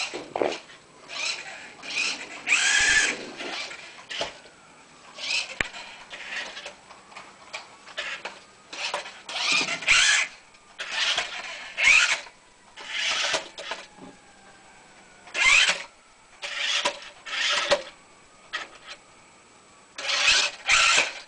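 Remote control toy car's small electric motor whirring in short spurts, about a dozen of them lasting a second or less each, its pitch gliding up and down as it speeds up and stops.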